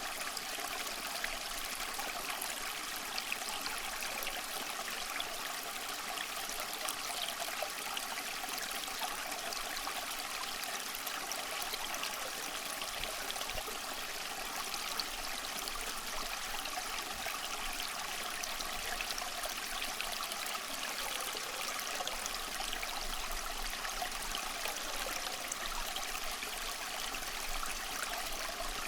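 A stream of water flowing and trickling steadily, with an even rushing hiss.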